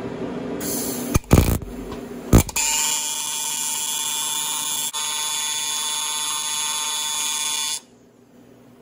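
AC TIG welder arc on an aluminium chainsaw cylinder, set to a 150 Hz AC frequency: a hiss and two loud crackles as the arc strikes, then a steady electric buzz for about five seconds, which cuts off suddenly near the end as the arc is broken.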